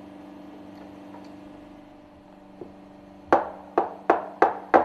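Steel puncture-valve parts knocking on a metal workbench: five sharp, ringing knocks in quick succession in the second half, over a low steady hum.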